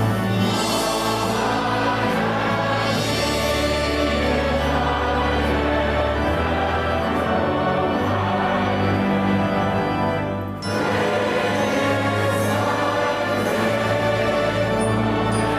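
Choir singing with instrumental accompaniment, in long held chords over a steady bass; the music breaks off briefly about ten and a half seconds in, then carries on.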